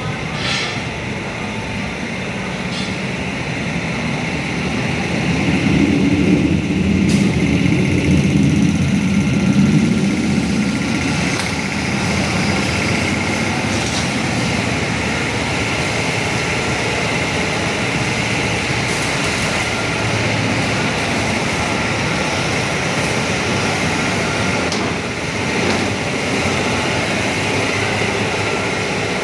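Tractor engine running steadily, growing louder for several seconds from about five seconds in, with a few sharp knocks.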